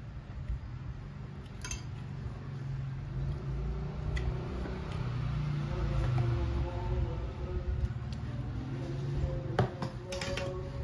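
Occasional clinks of metal spoons against serving bowls and plates over a low steady hum, with a cluster of sharper clinks near the end.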